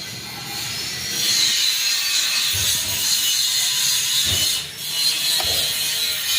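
Panasonic F-560Z2 industrial ceiling fan running, giving a steady mechanical hiss that briefly drops once, about three-quarters of the way through.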